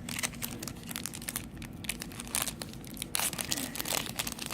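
Trading cards and their pack wrappers being handled: crinkling and rustling in many short, sharp bursts, with a little tearing.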